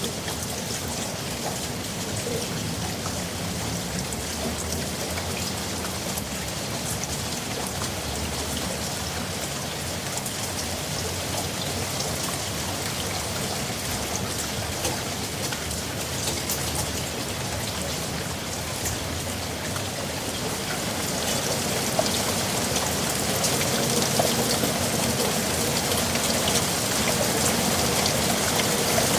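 Steady rain falling on a surface, with many individual drop impacts ticking through the hiss; it grows a little louder about two-thirds of the way through.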